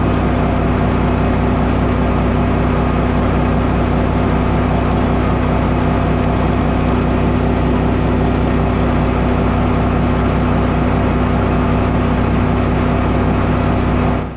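Gator Tail GTR40XD 40-horsepower surface-drive outboard mud motor running steadily, pushing a Gator Tail 1848 aluminium boat along at speed, with water rushing along the hull. The engine note holds an even pitch and fades out at the very end.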